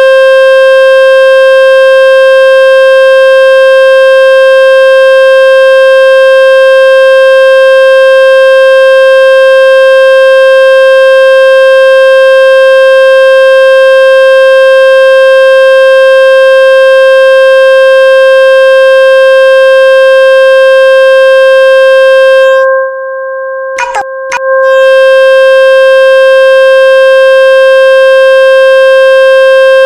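Steady, buzzy electronic tone from a speaker water-ejection app, played loud to shake water out of a phone's speaker. About 23 seconds in it thins to a quieter, plainer tone with two clicks for a second and a half, then returns at full strength.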